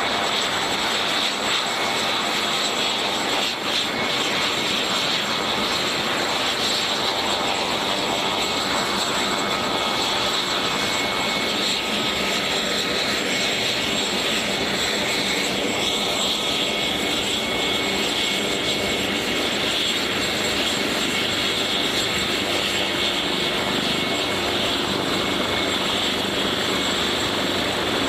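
MH-139A Grey Wolf helicopter, a military AW139 with twin Pratt & Whitney PT6C turboshaft engines, running on the ground with its rotors turning as it taxis. It makes a steady high turbine whine over a loud, even rush.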